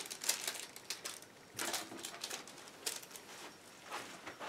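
A few scattered light clicks and rustles of small packaging handled in the hands as an enamel pin is taken out of its wrapping.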